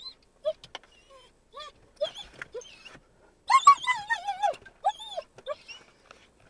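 A string of short, high whining animal calls with sliding pitch. The longest and loudest is a wavering call about three and a half seconds in.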